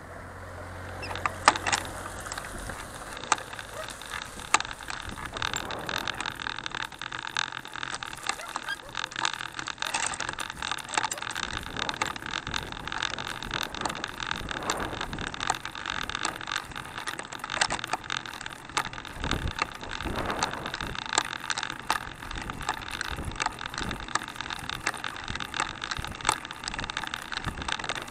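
Handcycle rolling along a rough road, its chain and frame rattling with a constant run of small clicks over the steady rumble of the tyres. The rattle picks up about a second in.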